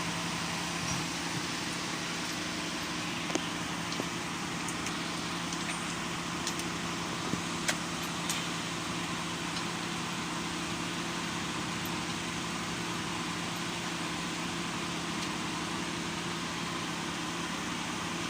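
Steady mechanical hum holding a few constant tones, with a handful of light clicks and taps in the first half.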